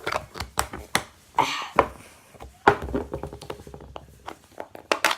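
Pink whoopie putty being stretched and poked by hand, giving irregular sticky clicks and short squelches.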